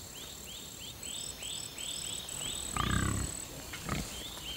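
Insect chorus: a steady high buzz that pulses on and off for a while, with short falling chirps about three a second. About three seconds in comes a brief low growling rumble, the loudest sound.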